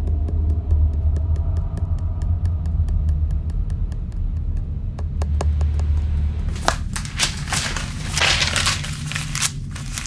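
A steady low hum under a fast, even ticking. About two-thirds of the way in, loud rustling and crackling handling noise takes over.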